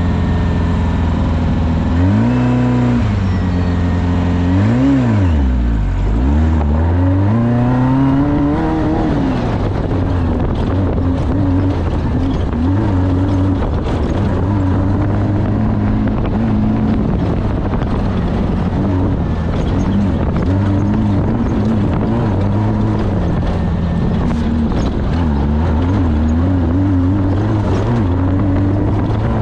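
Off-road race vehicle's engine running hard, its revs rising and falling over and over as it accelerates and backs off. It drops deeply twice in the first several seconds, then swings up and down in quicker, smaller waves.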